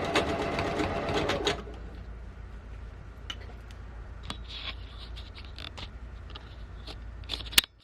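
Janome sewing machine stitching fast in free-motion quilting, then stopping about a second and a half in. A low hum and scattered small clicks and fabric handling follow, with one sharp click near the end.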